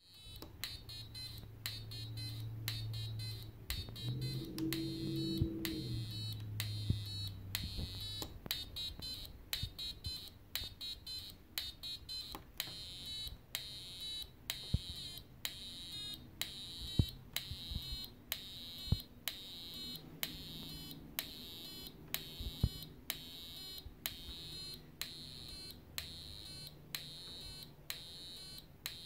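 Homemade CMOS step sequencer (CD40106 oscillator clocking a CD4040 counter and CD4051 multiplexer) playing a low, buzzy square-wave tone that jumps between pitches as the potentiometer knobs are turned. A sharp click marks each step in a steady train, over a faint high whine.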